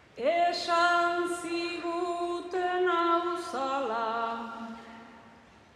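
A woman singing a Basque bertso a cappella into a microphone: one voice holding long, drawn-out notes that step down in pitch and fade out about five seconds in.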